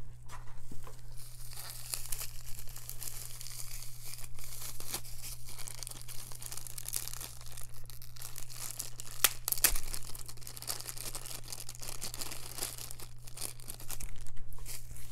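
Bubble wrap and a small clear plastic bag crinkling and crackling in the hands as they are pulled open and peeled off a small plastic model horse, with a couple of sharp clicks about two-thirds of the way through and a louder rustle near the end.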